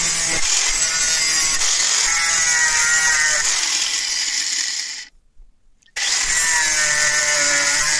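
Electric angle grinder with an abrasive disc running and grinding the steel of a rusty axe head, its whine wavering in pitch as the disc is pressed and eased off. The sound breaks off abruptly for about a second near two-thirds through, then resumes at full level.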